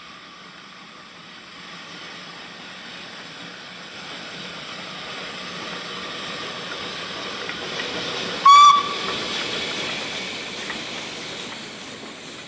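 Narrow-gauge steam locomotive drawing closer, its noise building steadily, then one short, sharp whistle blast about eight and a half seconds in, the loudest sound; afterwards the noise slowly eases off.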